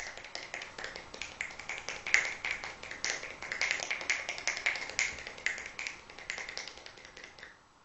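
Rapid run of one-handed whip snaps from both hands: wrists locked and forearms swung so the loose fingers flick and crack against each other, several sharp cracks a second. They stop just before the end.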